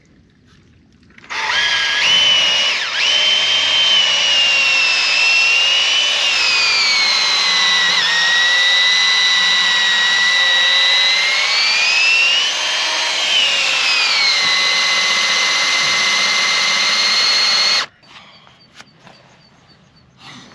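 Cordless drill boring into a wooden boat's hull with a long bit. Its whine starts about a second in, sags and rises in pitch a few times as it works, and cuts off abruptly near the end.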